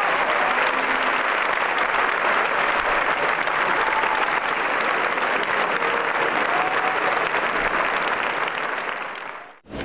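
Large audience applauding, a dense steady clapping that fades and then cuts off sharply near the end.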